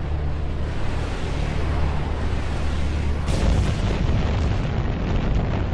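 Sound effects of an incendiary torpedo striking a ship: a low rumbling rush, then a sudden explosion a little over three seconds in, followed by continued rumbling of fire.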